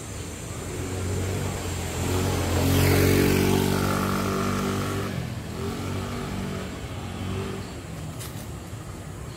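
A motorcycle passes close by on the street: its engine note swells to a peak about three seconds in, then fades as it rides away.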